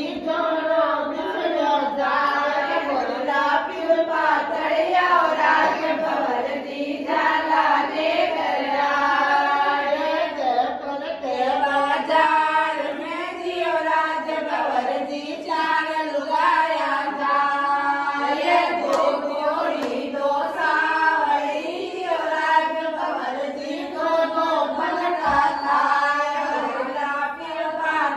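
A group of women singing a song together in chorus, their voices carrying on without a break.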